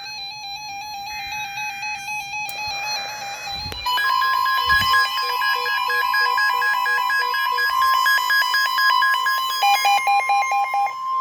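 Weather radios going into alert for a severe thunderstorm warning: a warbling alarm tone with two short buzzy data bursts and a moment of static, then about four seconds in the loud steady 1050 Hz NOAA Weather Radio warning tone starts, with the radios' own rapid beeping alarms, about four beeps a second, sounding over it.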